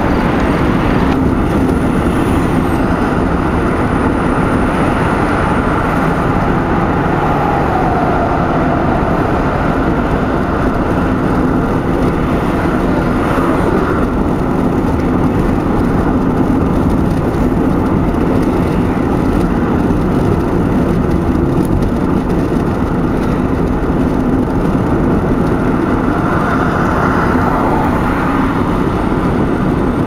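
Steady road noise inside a car driving at highway speed: tyre noise on the pavement with a low engine hum.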